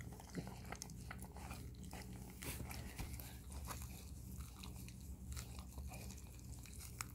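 Italian greyhound mother licking and chewing at her newborn puppy, a faint run of wet clicks and smacks as she cleans the pup and works at the birth sac and umbilical cord.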